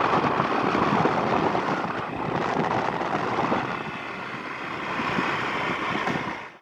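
Wind rushing over a phone microphone on a moving two-wheeler, with the ride's road and engine noise underneath. It cuts off suddenly near the end.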